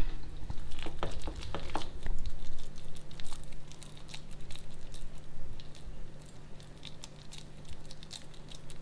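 A hand scooping and squeezing coarsely ground soaked dal dough in a bowl: soft crumbly squishing with many small clicks and crackles as a portion is pressed into a ball.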